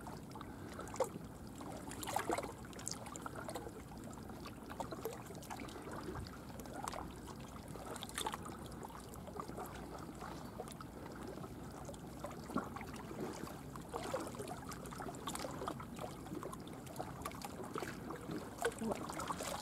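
Faint lapping of estuary water, with scattered small clicks and knocks.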